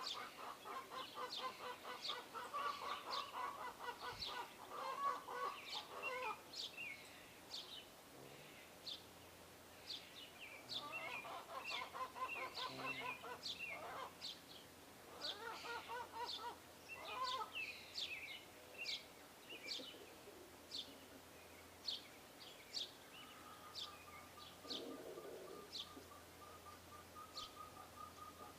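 Small birds chirping repeatedly with short, sharp calls, broken by several bursts of a lower, rapidly pulsed call from a larger bird, the longest in the first few seconds.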